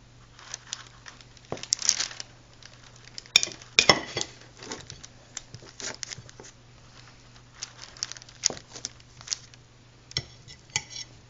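Scattered clinks and scrapes of cutlery on a plate, with some crinkling, as the pumpkin roll is cut into slices.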